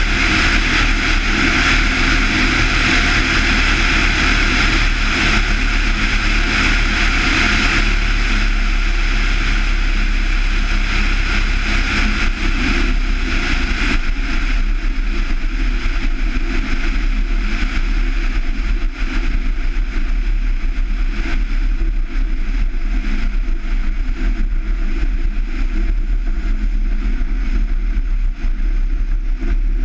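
Van's RV-7's Lycoming IO-360 four-cylinder engine and propeller running at low power as the plane rolls on a grass strip, heard from a wing-mounted camera. A rushing noise over the engine fades over the first dozen or so seconds as the plane slows, leaving a steady low engine hum.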